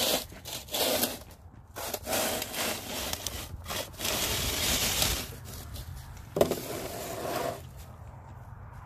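Snow shovel blade scraping snow across pavement in about four long pushes, the loudest about halfway through; the scraping stops near the end.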